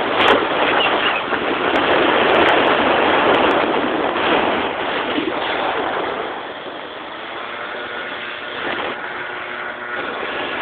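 Wind rushing over a phone microphone on a moving moped, with the moped's small engine running underneath. The rush is strongest for the first several seconds and eases about six seconds in.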